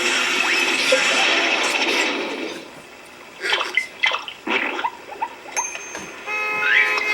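Car sound effects in quick succession: a long hissing rush for the first couple of seconds, then a string of short clunks and scrapes, then a car horn sounding near the end.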